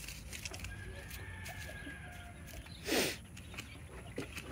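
A chicken gives one short call about three seconds in, the loudest sound here, over a faint, steady farmyard background.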